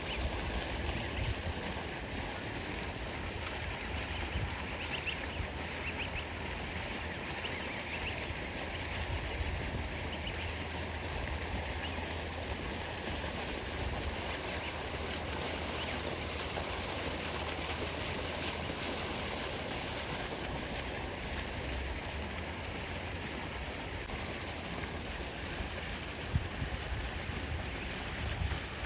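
Steady outdoor ambience dominated by wind rumbling on the microphone, with a few faint high bird calls about five to twelve seconds in.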